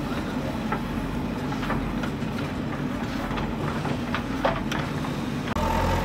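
JCB 3DX backhoe loader's diesel engine running steadily while it digs, with a few sharp clanks scattered through; the engine gets louder near the end.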